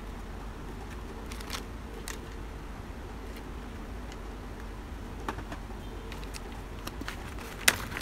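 Handling sounds from a plastic toy RC helicopter transmitter: a few light clicks and taps, then one sharper knock near the end, over a steady low hum.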